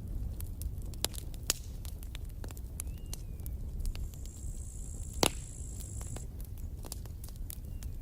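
Campfire crackling, with irregular sharp snaps and pops over a low steady rumble. The loudest pop comes about five seconds in.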